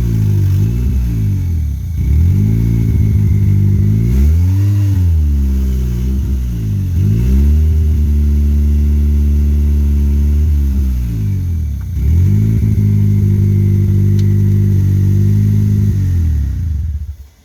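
Turbocharged Honda D16Z6 1.6-litre four-cylinder engine pulling hard through the gears. The revs climb and fall several times, hold steady for a few seconds midway, then rise and fall again. The sound drops away sharply at the very end.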